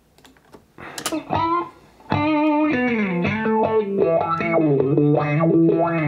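Electric guitar test track played back through the Bias FX 2 amp and effects plug-in, with a distorted tone. A few notes start about a second in, then fuller playing from about two seconds in, with some notes sliding down in pitch.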